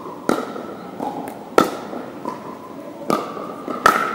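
Pickleball rally: paddles hitting the hard plastic ball, giving sharp hollow pops about every second and a half, with the last two close together near the end and a couple of fainter taps between them. Each hit rings on in the echo of a large gym hall.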